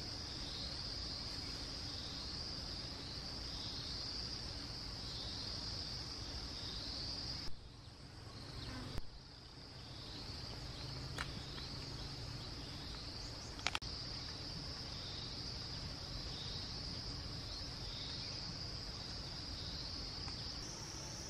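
Steady, high-pitched insect chorus that swells in a regular pulse. It drops out for about a second and a half around the middle, and there are two sharp clicks a little later.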